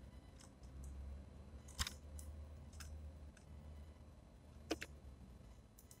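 Sharp taps and clicks of small birds, a Eurasian tree sparrow and a great tit, pecking seed and landing on a wooden platform feeder, with two louder knocks about two and five seconds in. A faint low rumble lies underneath.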